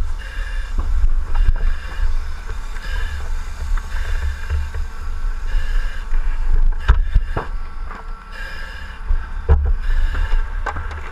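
A firefighter on the move inside a burning building, heard from his helmet camera: a steady low rumble with scattered knocks and scrapes of gear, and a whistling hiss that comes and goes every couple of seconds, like breathing through a breathing-apparatus mask.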